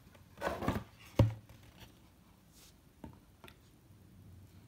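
Trading cards being handled: a short rustle of cardboard sliding, then one sharp tap about a second in, and a couple of faint ticks later.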